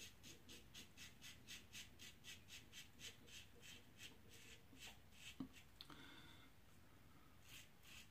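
Faint scraping of a Global Shave Club Americano double-edge safety razor cutting through lathered stubble in short quick strokes, about four a second, on an against-the-grain pass. The strokes stop for a couple of seconds with a single tick past the middle, then start again near the end.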